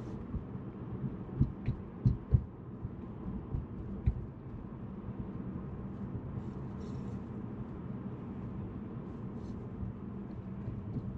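Road and tyre noise inside a moving Tesla Model 3's cabin: a steady low rumble, with several sharp thumps in the first four seconds.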